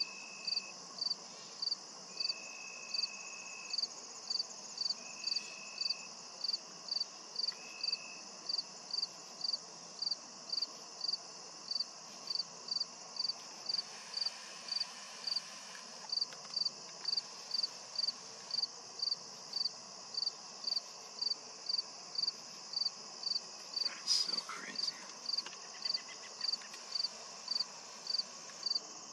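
Field insect chorus: a cricket chirping steadily, about one and a half short high chirps a second, over a continuous high insect trill, with a second insect's trill starting and stopping in the first few seconds. About five seconds before the end, one brief sharp sound with a falling pitch stands out.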